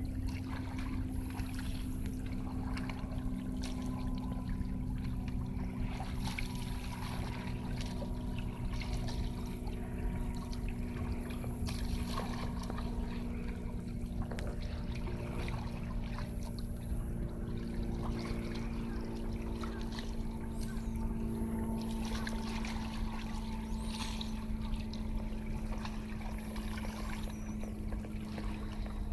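A steady engine hum holding a few fixed pitches, with water trickling and lapping.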